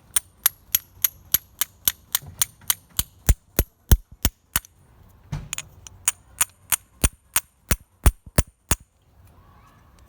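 Sharp metallic clicks in a steady series, about three or four a second, with a short pause midway, as metal parts of a turbo pressure sensor are worked together during reassembly.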